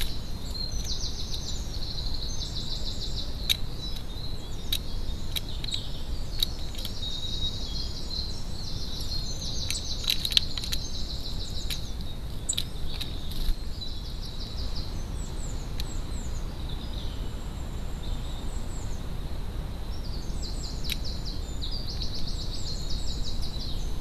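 Garden songbirds singing: repeated high, rapid trilled phrases, each a second or two long, over a steady low hiss. A few sharp taps come through, bunched around ten seconds in.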